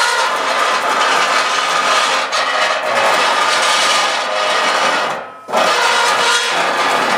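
A loud, continuous rasping, rubbing noise with faint steady tones running through it, a homemade imitation of the reported 'strange sounds' from the sky. It cuts out briefly about five seconds in and then resumes.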